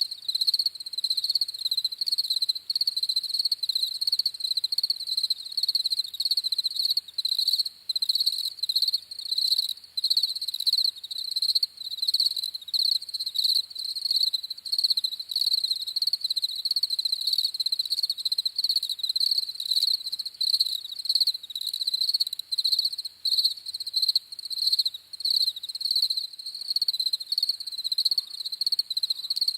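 Crickets chirping: a continuous run of rapid, high-pitched pulsed chirps.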